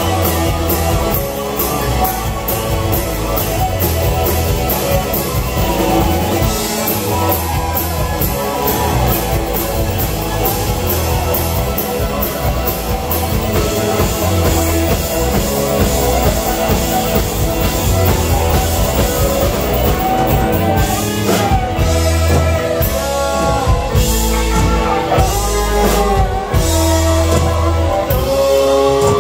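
Live country-rock band playing: strummed acoustic guitar, electric guitar, bass guitar, drum kit and fiddle. Steady cymbal strokes run through the first part, and the drums hit harder in the last few seconds.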